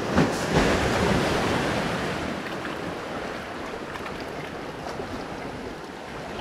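Sea surf washing against shoreline rocks: a couple of surges of water in the first second, then a steady wash that slowly ebbs.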